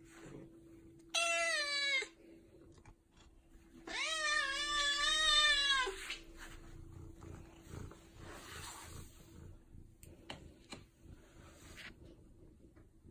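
Domestic tabby cat meowing twice: a short meow about a second in, then a longer, drawn-out meow about four seconds in.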